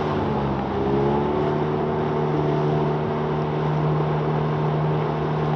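Boat motor running steadily with a constant hum, its pitch rising slightly about a second in, over a steady hiss of water and wind.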